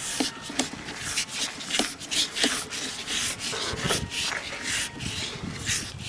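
Sewer inspection camera and its push cable being fed through the pipe, giving irregular rubbing and scraping with short knocks several times a second.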